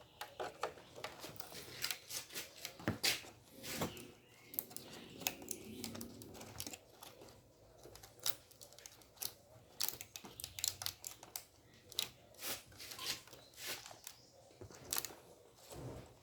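Irregular clicks, taps and rustling of hands working a wire defrost heater onto a refrigerator's tube-type evaporator plate.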